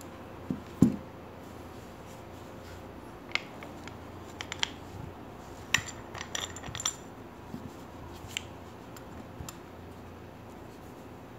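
A Leatherman Micra keychain multitool being handled: scattered light metallic clicks and taps, thickest in the middle, after two dull knocks about half a second apart near the start.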